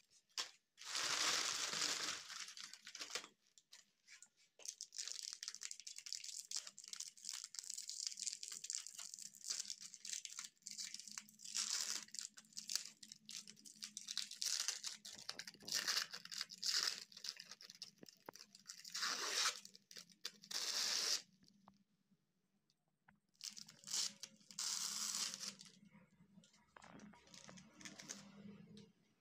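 Shiny foil snack wrappers being torn open and crinkled by hand as wafer sticks are unwrapped. The sound comes in repeated bursts of tearing and rustling with short pauses, including a longer gap about two-thirds of the way through.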